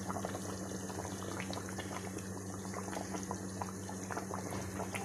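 Fish curry gravy simmering in a pot, bubbling with a steady stream of small pops over a steady low hum.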